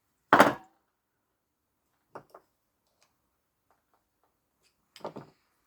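Knocks and clicks of tools and parts being handled and set down on a workbench: one loud clunk about half a second in, two light clicks after about two seconds, and a short cluster of knocks near the end.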